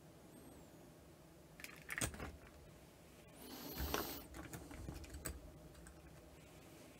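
Faint plastic clicks and rattles of a model railway coach and its bogies being handled by hand on the track, with a short scraping rustle about three to four seconds in.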